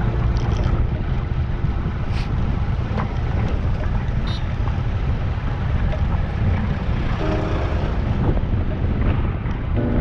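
Wind buffeting the microphone of a camera riding along on a moving bicycle: a steady low rumble, with a few faint held tones of music about seven seconds in.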